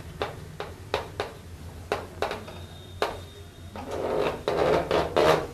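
Someone writing by hand: a series of irregular sharp taps and short scratches of the writing strokes, with a softer scratchy stretch near the end.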